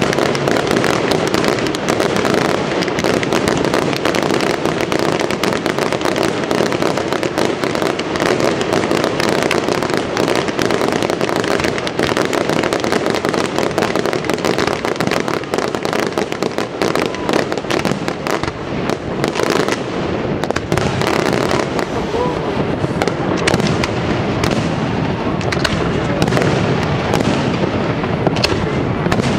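Fireworks display: aerial shells bursting in a dense, continuous barrage of rapid bangs. In the last ten seconds or so the bangs come deeper and more distinct.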